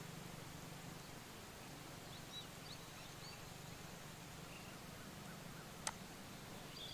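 Quiet background with a low steady hum and a few faint bird chirps a little after two seconds in. One sharp click comes near the end.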